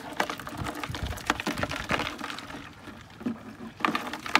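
Irregular light knocks and clicks as a paddle and bamboo pole work against a wooden canoe, a few strokes a second with no steady rhythm.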